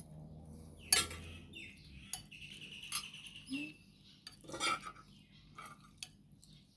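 Cutlery clinking and scraping against plates during a meal: scattered sharp clinks, the loudest about a second in. A short high-pitched squeak sounds near the middle.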